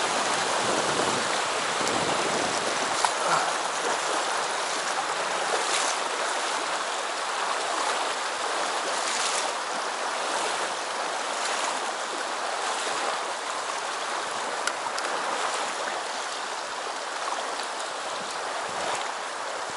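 A shallow, rocky stream running steadily over stones, an even rush of water close to the microphone.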